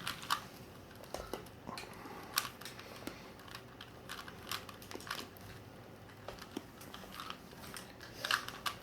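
Rubik's cube being twisted by hand: irregular, quick plastic clicks and clatters as the layers turn.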